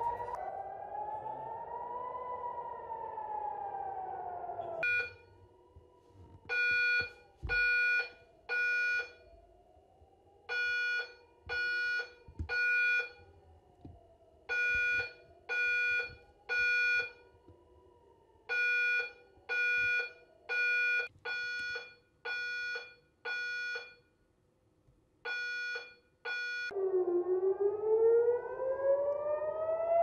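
Civil-defence air-raid siren wailing, its pitch slowly rising and falling. About five seconds in it cuts to an electronic alarm beeping about once a second, mostly in groups of three, over a fainter siren wail. Near the end a loud wailing siren comes back.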